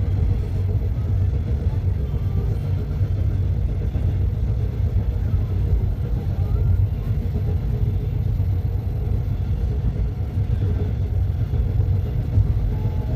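Train in motion: a steady low rumble.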